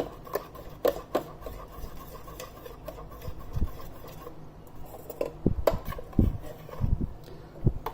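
A spoon stirring and scraping around a saucepan of thick hibiscus-tea sugar syrup, with a few light clicks in the first second and a few soft low thumps in the second half.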